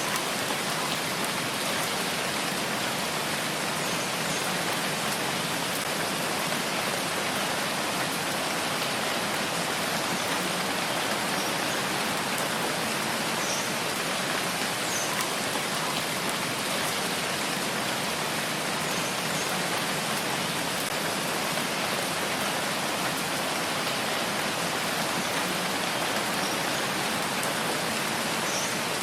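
Steady rain falling, an even unbroken hiss with faint scattered drops.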